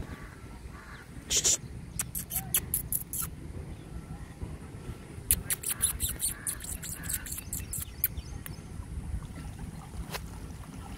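Outdoor ambience of shallow water with a low rumble of wind or water on the microphone, broken by clusters of sharp clicks: a short run about a second in, more around two to three seconds in, a longer run from about five to eight seconds in, and one near the end.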